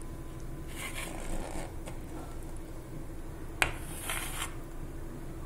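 Thick cake batter being poured and scraped out of a glass mixing bowl into a metal cake tin: two short scraping strokes, with a sharp click just before the second.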